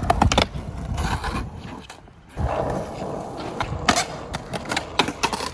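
Skateboard wheels rolling over pavement with a steady rumble, broken by several sharp clacks of the board. The rolling drops out briefly about two seconds in, then picks up again.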